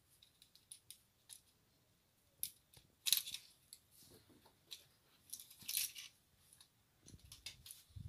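Small metallic clicks and scrapes of an electrical outlet and its wires being handled while the wires are fitted to the screw terminals. The sharp ticks come at irregular moments, the loudest about three seconds in and again near six seconds, with a few dull knocks near the end.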